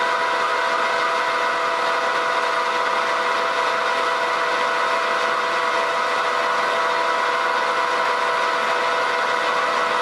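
American Pacemaker engine lathe rough-turning a steel disc: a steady noise of the tool cutting, with a whine of several steady tones from the running machine.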